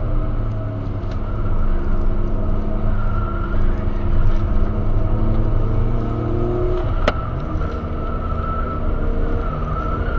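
Turbocharged Skoda Octavia four-cylinder engine with a Supersprint exhaust, heard from inside the cabin pulling hard with its pitch slowly rising. About seven seconds in there is a single sharp knock, after which the engine runs on at a lower pitch.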